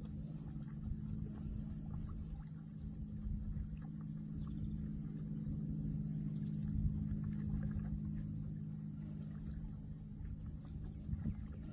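Wild Banker horses grazing in a shallow marsh, with faint, scattered crunches as they pull and chew grass and reeds, over a steady low hum and rumble.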